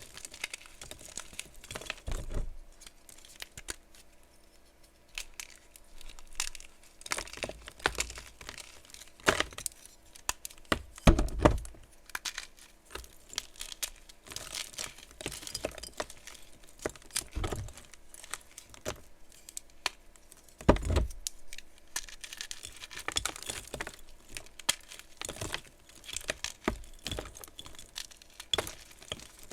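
Blocks of gym chalk being crushed, crunching and crumbling in irregular crackles and sharp cracks, with a heavier crunch about 11 seconds in and another about 21 seconds in.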